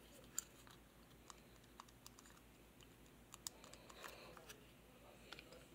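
Faint small plastic clicks and taps as a plastic toy pocket watch is turned and fiddled with in the hands, the sharpest clicks about half a second in and again around three and a half seconds in.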